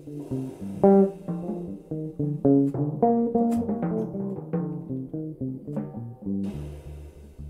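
Extended-range electric bass playing a quick run of single plucked notes, each note starting sharply and dying away. A drum kit comes in lightly, with cymbal hiss near the start and again near the end, and low drum or bass notes in the last second.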